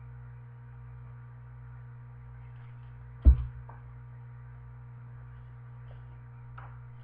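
A picture book being lowered and set down, with one loud knock about three seconds in, over a steady low electrical hum.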